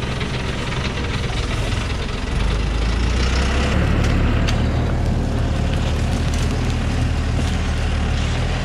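Thaco Forland truck's diesel engine running as the truck reverses along a rough forest track, getting louder about two seconds in and holding there.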